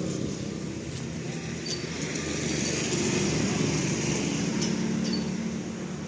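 A motor vehicle engine running steadily, with a low hum and street noise.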